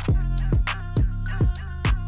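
Background music with a steady beat and deep bass, about three hits a second.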